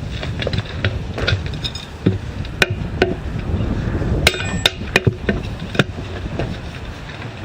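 Irregular sharp metallic taps and clinks of hand tools striking metal, about a dozen, with the loudest clustered in the middle and some ringing briefly.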